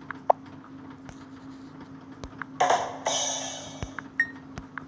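A Messenger notification tone previewed on a phone's speaker: a short percussive hit about two and a half seconds in that fades out over about a second, with a few faint clicks around it over a steady low hum.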